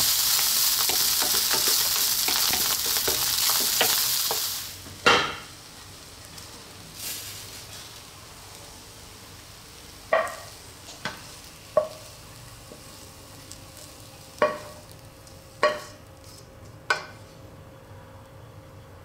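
Fried rice sizzling in a hot wok while a wooden spatula stirs it; the sizzle stops about four and a half seconds in. A loud knock follows, then six sharp, ringing knocks of the spatula against the wok as the rice is scraped out onto a plate.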